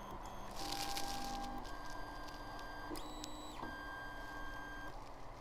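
Kingroon KP3 3D printer's stepper motors whining as the bed and print head travel to a levelling corner: a few steady tones that change pitch in steps, starting about half a second in and stopping near the end.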